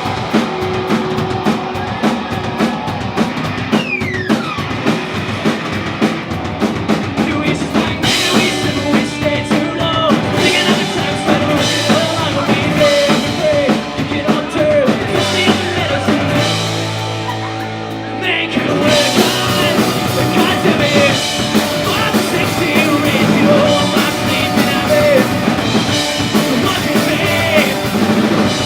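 Rock band playing live with a full drum kit. Just past the middle the drums and high end drop out for about two seconds, leaving a held low note, then the full band comes back in.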